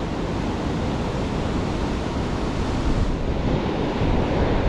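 Steady rush of spillway water, with wind buffeting the microphone.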